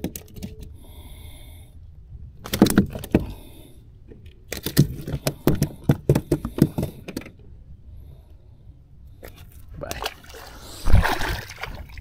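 Rapid clattering and slapping on the plastic deck of a fishing kayak, in several short runs, then a louder thump and rustle near the end.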